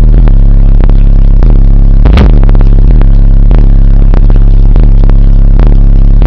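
Sundown Audio SA-12 12-inch subwoofer in a truck cab, playing a bass-heavy track very loud. A deep steady bass note sits under a bass line that dips in pitch about once every 0.7 seconds. The recording is at full level, with clicking distortion throughout.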